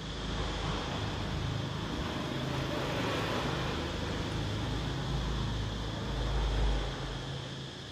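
Low rumble of passing road traffic, swelling about six and a half seconds in and then fading, with a faint steady high whine underneath.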